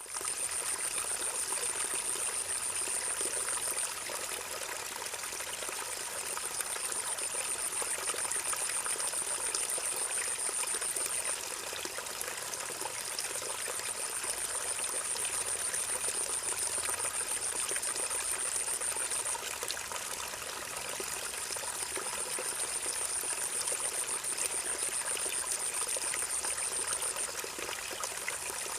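A river flowing steadily, a continuous rushing and trickling of water. Over it a high, thin steady buzz comes in long stretches of several seconds, broken by short pauses about four times.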